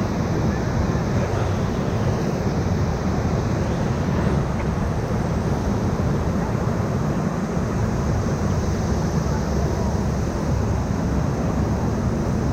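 Whitewater of the Ocoee River rushing steadily around a raft, an even wash of water noise with no break.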